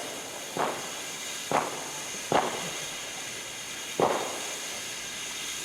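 Fireworks going off: four sharp bangs at uneven intervals over a steady hiss.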